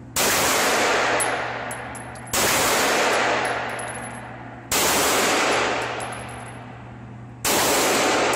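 Semi-automatic pistol fired four times, slow single shots about two to three seconds apart, each crack followed by a long echo in a concrete indoor range lane.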